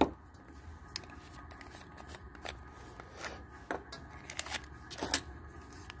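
Irregular light clicks and taps of hands handling small objects, the sharpest about five seconds in.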